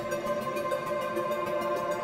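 Electronic music with sustained, layered chords.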